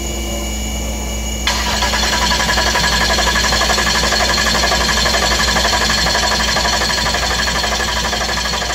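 Starter motor cranking a twin-turbo diesel engine over without it firing, an even rapid rhythm from the compression strokes. The cranking pumps freshly added oil around the engine and up to the filter. It starts suddenly about one and a half seconds in, over a steady shop hum.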